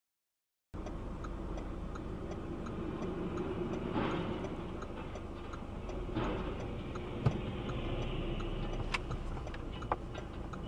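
Dashcam audio from inside a moving car: a steady low engine and road hum with faint, regular ticking, about three ticks a second, two swells of passing noise, and a few sharp clicks in the second half. It starts abruptly about a second in, after silence.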